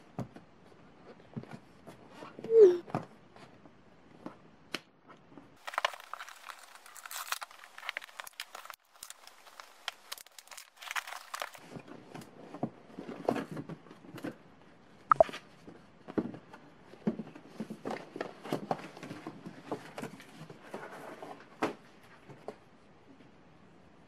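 Paper gift packaging being handled and opened: rustling, crinkling and tearing paper with scattered light taps, the densest rustling between about six and eleven seconds in. A short, loud squeak about three seconds in.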